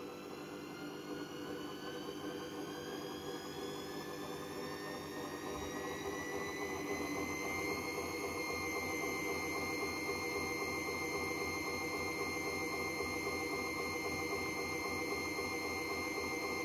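VON front-loading washing machine drum spinning up: a motor whine rises in pitch over the first several seconds and then holds steady, over a rough rumble that grows louder with the speed. The noise comes from worn-out drum bearings.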